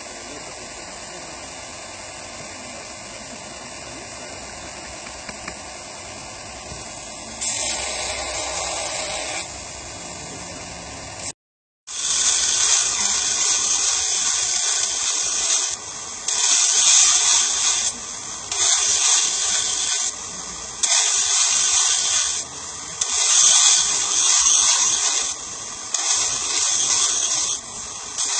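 A powered grinder grinding the bevel of a hand-forged knife blade: a steady hiss at first, then, after a brief break, a louder, harsher hiss in about six passes of one to two seconds each as the blade is pressed to the wheel and lifted off.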